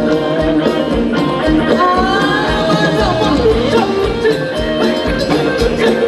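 Thai ramwong (rum wong) dance music from a live band: a steady percussion beat under a sustained, sliding melody line.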